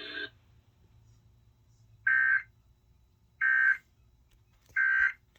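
Emergency Alert System end-of-message data bursts: three short, identical digital screeches about 1.3 seconds apart, marking the end of the alert.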